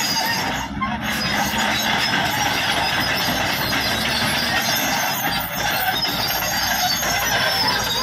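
Caterpillar D6R crawler bulldozer working under load, its diesel engine running steadily while the steel tracks squeal and clank as the blade pushes and spreads gravel and soil. Thin high squeals ride over the steady engine and track noise.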